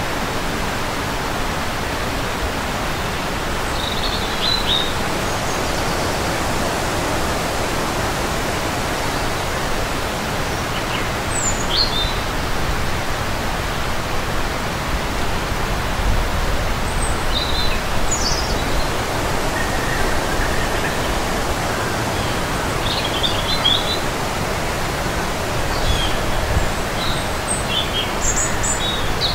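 Steady wind rushing over the microphone, gusting and buffeting it now and then, with small birds giving short high chirps here and there above it.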